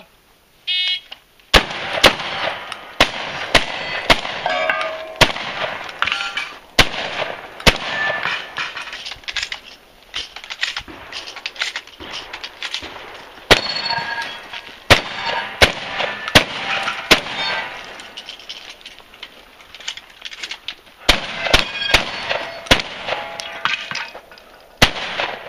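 Shot-timer start beep, then a competition shotgun run: many shotgun shots in quick clusters of two to four, with pauses between clusters, some followed by the ring of steel targets being hit.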